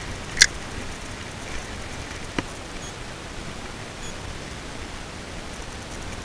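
Steady rushing outdoor noise of wind and river water, with one brief, sharp, high-pitched zip about half a second in and a faint click a couple of seconds later.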